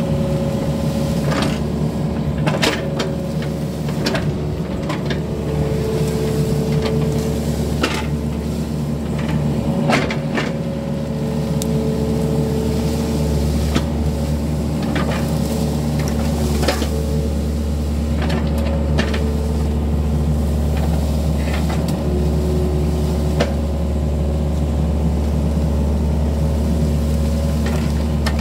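Yanmar mini excavator's diesel engine running steadily under load, with a higher whine that comes and goes several times as the arm works. Scattered sharp cracks and knocks come from the bucket tearing through fronds, ferns and mud while clearing the ditch.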